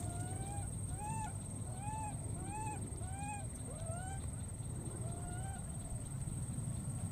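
Infant macaque giving a run of short, arched calls, each rising then falling in pitch: about six in quick succession, then one more after a pause. These are a lone baby monkey calling for a companion. A steady low rumble runs underneath.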